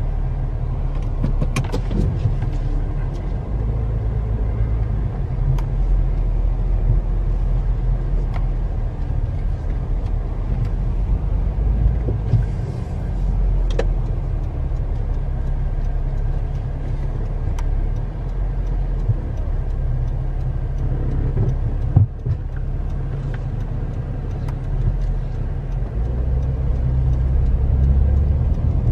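Car driving slowly, heard inside the cabin: a steady low engine and road rumble. A few small clicks and one sharper knock about two-thirds of the way through, and it grows a little louder near the end.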